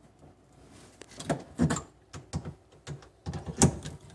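Hand pop-rivet gun clicking as its handle is squeezed and let go again and again on a tight rivet in a steel plate: about nine sharp clicks in the last three seconds, the loudest near the end.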